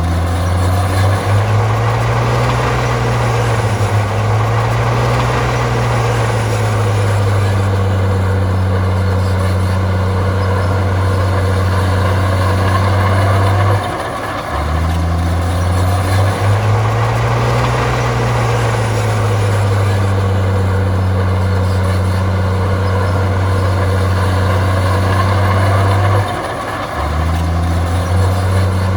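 Heavy diesel engine of a bulldozer working under load, together with a rattling mid-range noise. The engine note rises and falls in repeated cycles and drops briefly twice, about halfway through and near the end.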